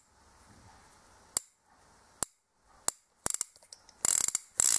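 Steel blank revolver's action clicking as its cylinder is turned by hand: single sharp clicks about a second apart, then a quick run of clicks and a dense stretch of rapid clicking and rattling near the end.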